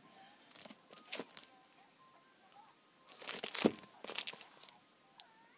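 Clear plastic bags around paperback manga volumes crinkling in short rustles as the books are handled, loudest in a cluster about three to four and a half seconds in. Faint music plays underneath.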